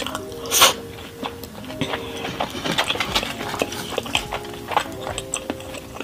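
Close-miked eating sounds: a person licking their fingers and chewing pizza, with wet mouth clicks and smacks and one loud smack about half a second in, over soft background music.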